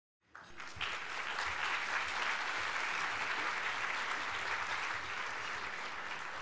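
Audience applauding, starting just after the opening and easing off slightly near the end.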